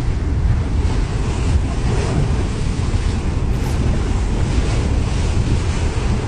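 Swimming-pool water surging and splashing as an earthquake sloshes it back and forth, over a steady low rushing noise.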